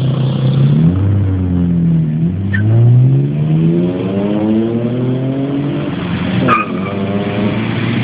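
BMW engine accelerating away from a standstill. Its note climbs steadily for about four seconds, then drops sharply about six and a half seconds in, as at an upshift, and runs on at a lower pitch. Short sharp chirps come about two and a half and six and a half seconds in.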